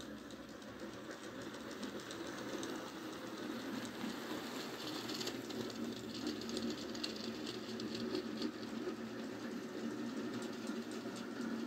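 Model railway locomotive's small electric motor whirring steadily as it hauls a short train of wagons, with fast light clicking from the wheels running over the track and rail joints.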